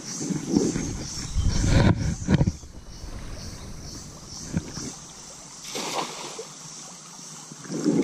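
Cast-net fishing in a shallow stream: water sloshing with a low rumble of wind on the microphone for the first two and a half seconds, then the thrown cast net splashing down onto the water about six seconds in.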